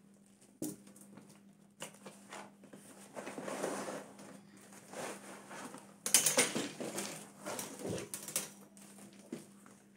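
Hands handling an item: irregular rustling, taps and light knocks, busiest about six to eight seconds in, over a faint steady hum.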